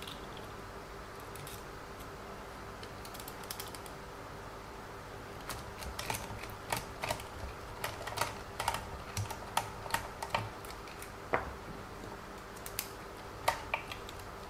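Light, irregular clicks and taps of small plastic RC-car parts being handled and fitted: the lower suspension arm, hinge pin and drive shaft of a WLToys 144001. Sparse at first, more frequent from about five seconds in, over a faint steady hum.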